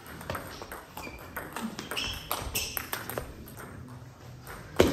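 Table tennis rally: the ball clicking off the bats and the table in quick succession, with a single loud thump near the end.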